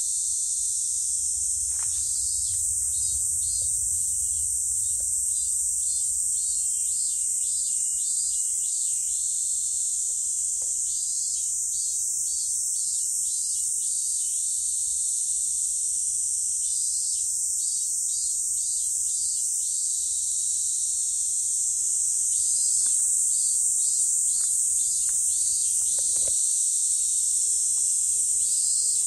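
Cicadas singing: a steady, high-pitched drone, with a second, pulsing call that comes and goes in phrases of a few seconds.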